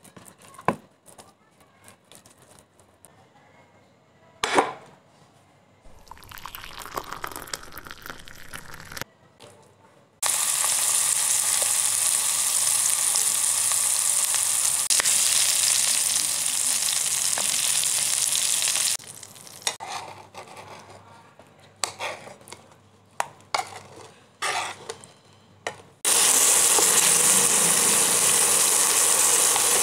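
A whole masala-coated fish shallow-frying in hot oil in a pan: a loud, steady sizzle that starts abruptly about ten seconds in and lasts about nine seconds, then starts again abruptly near the end. Before and between the sizzles there are only scattered clicks and short bursts of softer noise.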